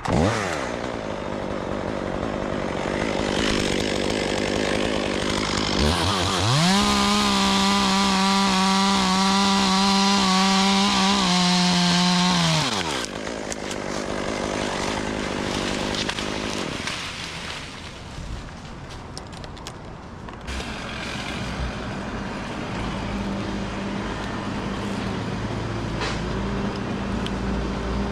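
Two-stroke chainsaw revving up to full throttle and holding there for about six seconds in the middle, then dropping back. It runs at lower revs for the rest of the time.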